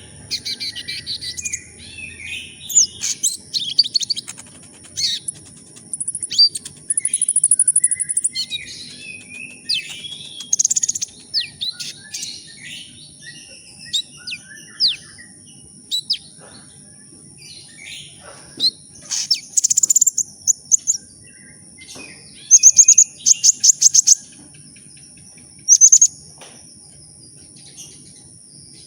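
Kolibri ninja, a small sunbird, singing in rapid bursts of high, thin chirps and fast trills with short gaps between phrases. A faint steady high-pitched tone runs underneath.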